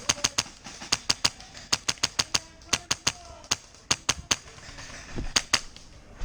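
Airsoft guns firing: about twenty sharp cracks in quick strings of two to four shots, with a longer pause near the end before a last pair.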